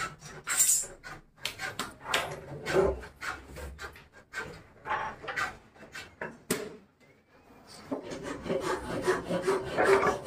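Wood being scraped or rubbed in short, irregular strokes, stopping for about a second some seven seconds in and then starting again.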